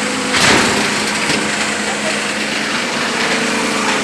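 PET bottle grinder running with a steady mechanical hum and whirr. About half a second in comes a loud sharp crunching clatter, and a smaller one about a second later.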